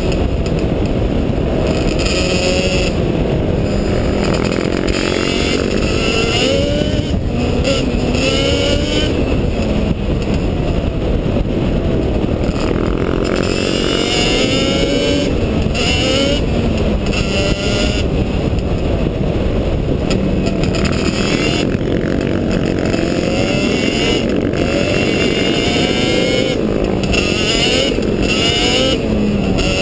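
ATV (quad) engine running under way, its pitch rising and falling repeatedly as the throttle is worked, over a loud steady low rumble.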